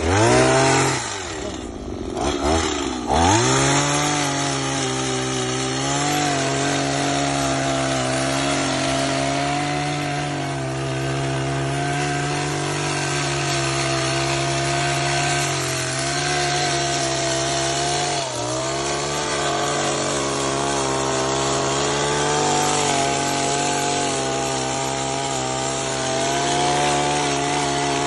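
Chainsaw revved up twice, then held at a steady high speed while cutting back the dry dead leaf skirt of a grass tree, with a brief dip in speed about two-thirds of the way through.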